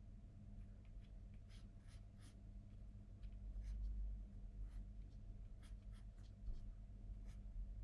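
Pencil drawing lightly on paper: faint, irregular short scratching strokes.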